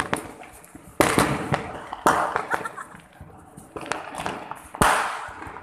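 Pop-pop firecrackers going off: three sharp cracks, about a second in, about two seconds in and near the end, each trailing off over about half a second, with a few smaller snaps at the start.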